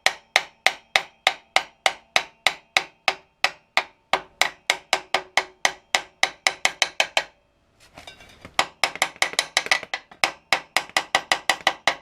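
Hammer tapping a greased metal part back onto its fitting, light even blows with a metallic ring, about three a second. After a short pause a little past halfway, the taps resume quicker.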